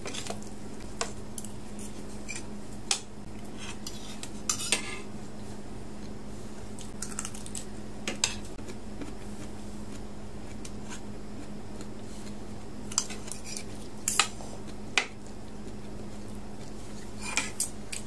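Metal fork and spoon clinking and scraping against a ceramic plate, in scattered sharp clicks, over a steady low hum.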